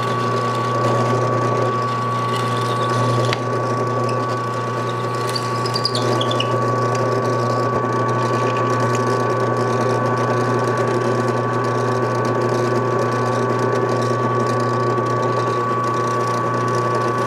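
A shop machine running steadily: a constant high whine over a low hum, with no pauses.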